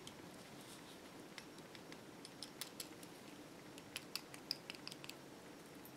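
Faint, irregular light clicks of the stone and lava beads of a bead bracelet knocking together as it is handled, most of them in the second half.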